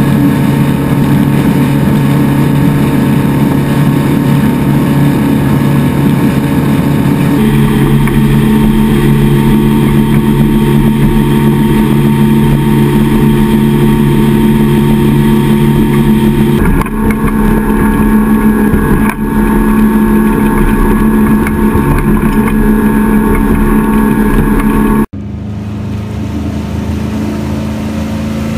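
Motorboat running at speed, a steady engine drone over rushing water. The drone's pitch shifts abruptly three times, about seven, seventeen and twenty-five seconds in, and is quieter after the last change.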